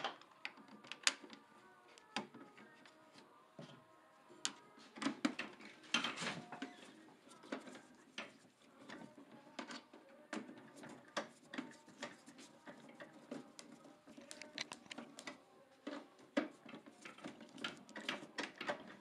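A hand screwdriver driving small screws into the clear plastic drum of a Polyplanter Jr. 2.0 seeder. Irregular light clicks and taps of plastic and metal parts sound as they are handled.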